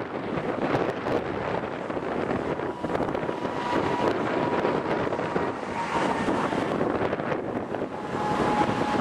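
Wind buffeting the microphone in gusts, a rushing, fluttering noise from thunderstorm winds on open prairie.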